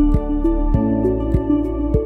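Background music: a gentle new-age style tune with sustained melodic notes over a steady beat.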